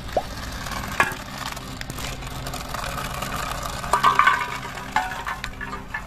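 Empty aluminium drink cans clinking and clattering as a toy remote-control car knocks into them: a few single clicks early on, then a louder burst of rattling, ringing hits about four seconds in and another near five seconds, over a steady low hum.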